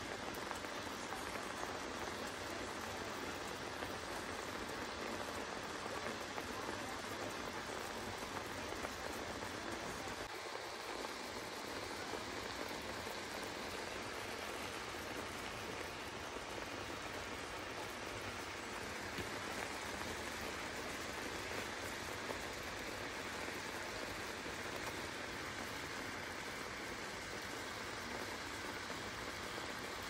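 Chicken tocino boiling in water in a frying pan, a steady bubbling that keeps on evenly. This is the stage where the meat cooks through in water before any oil goes in.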